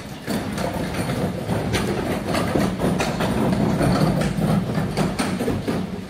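Gloved fingers rubbing and smearing oil paint across a ceramic tile: a continuous scratchy rubbing made of many short strokes.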